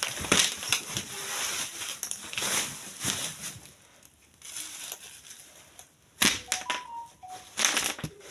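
Rustling and crinkling of packaging being handled, with scattered clicks and knocks; it goes quieter about four seconds in, then two sharp knocks follow near the end.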